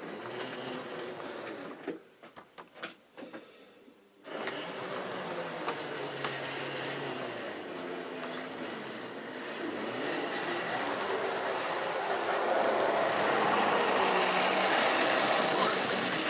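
Model railway train running on the track: a steady mechanical whirr of the locomotive's electric motor and rolling wheels. There are a few separate clicks between about 2 and 4 seconds. The running sound then picks up again and grows louder from about 10 seconds in as the model diesel locomotive comes close.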